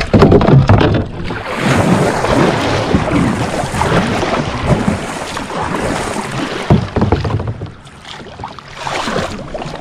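Kayak paddle strokes splashing through the water, fast and hard, as the kayak is driven ahead; the splashing eases off about seven and a half seconds in.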